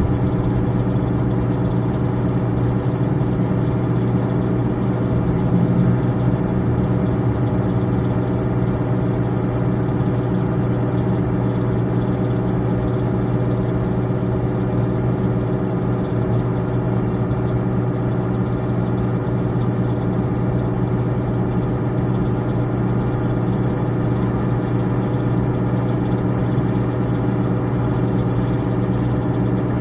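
A steady, low mechanical drone like an engine idling, unchanging throughout.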